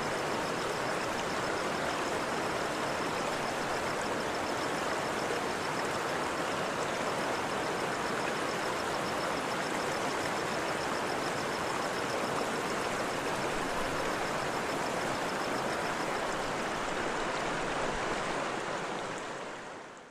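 Waterfall's water rushing in a steady roar, fading out near the end.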